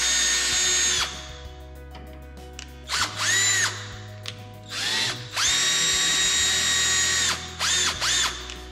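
Cordless drill spinning a steel hinge pin into the piano hinge of a fiberglass aircraft wingtip, run in stop-start bursts. Its whine runs for about a second, stops, comes back briefly around three seconds in, rising and falling in pitch, runs steadily for about two seconds later on, and ends with two short blips near the end.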